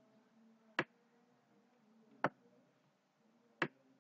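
Three sharp computer mouse clicks, about a second and a half apart, over a faint steady low hum.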